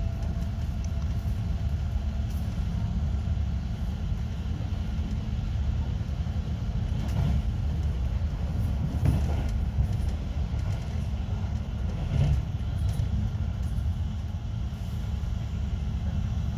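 Regional train running steadily, heard from inside the carriage: a continuous low rumble of wheels on the track, broken by a few louder knocks about two-fifths of the way in and past halfway.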